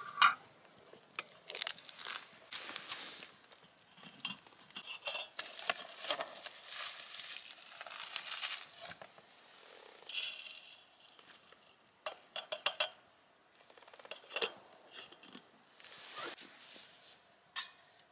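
Metal camp cookware and utensils clinking and clattering as they are handled, in scattered short knocks, mixed with bursts of rustling and crinkling.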